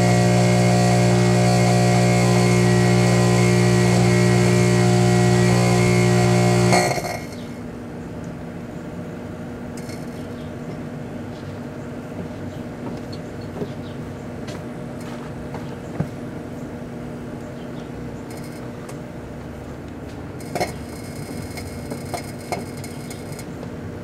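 Background rock music holds a steady chord and stops abruptly about seven seconds in. After that, the Danby microwave oven runs with a steady hum, with a few faint clicks scattered through it.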